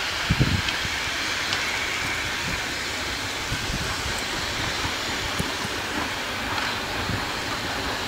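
A passenger train hauled by a Romanian locomotive slowly approaches over station switches, giving a steady rumbling hiss with a few faint ticks from the wheels on the rails. There are brief low thumps about half a second in.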